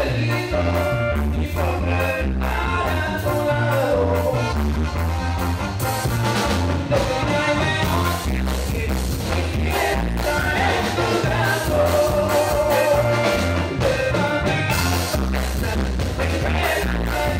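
Live band music: an electronic keyboard plays the melody over a steady, evenly pulsing bass-and-drum beat.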